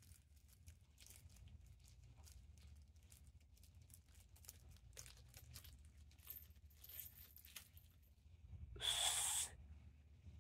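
Faint crinkling and clicking of a small plastic packet being handled and opened, with one louder tearing rip, under a second long, near the end.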